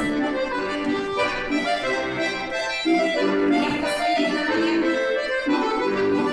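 Accordion playing live accompaniment for a folk-dance barre exercise: a continuous run of sustained chords in phrases.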